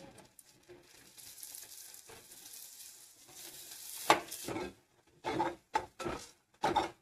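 Spiced tomato masala with fresh coriander sizzling softly in a pan. About four seconds in there is a sharp clank of a spoon on the pan, then a series of short scraping strokes as the masala is stirred.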